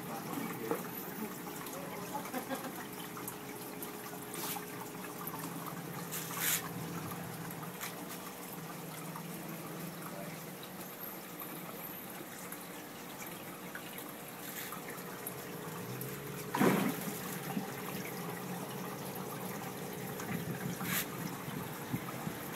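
Aquarium water trickling steadily, with a faint steady hum beneath it. A few short knocks break in, the loudest about three-quarters of the way through.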